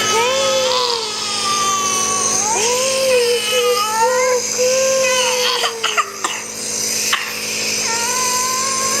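A young child crying in long, drawn-out wails, with a few short clicks or knocks about two-thirds of the way through.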